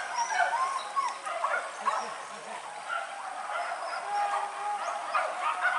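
Hunting dogs on a wild boar hunt yelping and barking, many short, high, overlapping calls.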